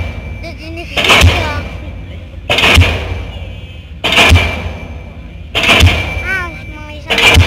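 Diesel pile hammer on a crawler pile-driving rig striking a concrete pile, five heavy bangs about a second and a half apart, each dying away before the next. The uploader takes the thick smoke during this driving as the sign that the pile has reached hard ground.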